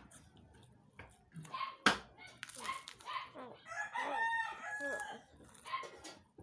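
Skyflakes crackers being bitten and chewed close up, with sharp crunches, the loudest about two seconds in. A rooster crows once about four seconds in, a call lasting over a second.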